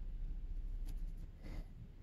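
A few faint light clicks as a two-stroke snowmobile piston is handled and turned in the hands, over a low steady hum.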